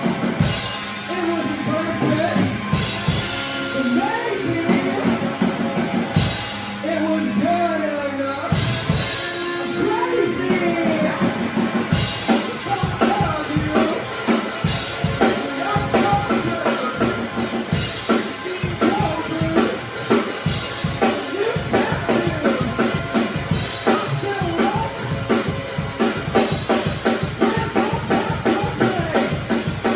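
A live band playing a song with drum kit and a singer; the sound gets fuller, with the cymbals going continuously, from about twelve seconds in.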